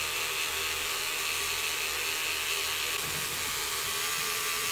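Small handheld rotary tool with a felt polishing bit running steadily, giving an even hiss with a faint whine.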